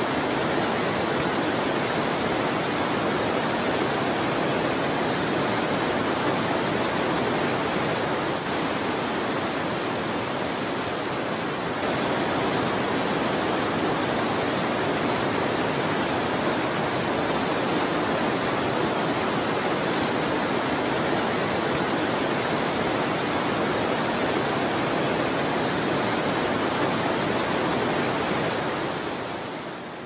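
Steady rushing of falling water from a waterfall, even and unbroken, fading out near the end.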